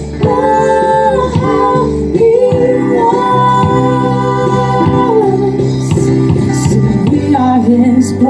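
Live worship music: singing in long held notes over guitar accompaniment.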